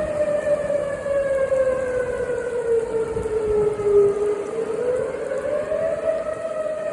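Outdoor storm warning siren wailing during a storm; its pitch slowly falls and then rises again about two-thirds of the way through.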